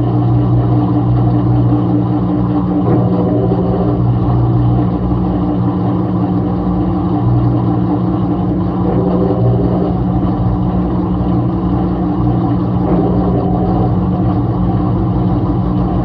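Midea top-load washing machine spinning its tub at speed in the spin stage of the rinse cycle: a loud, steady motor hum and whir.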